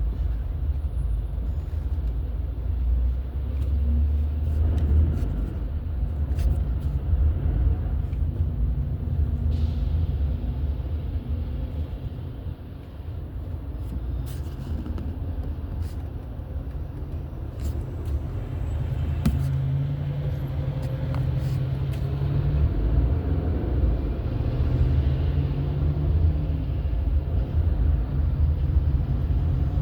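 A car driving on a road: steady low rumble of engine and tyre noise, with a brief dip about halfway through.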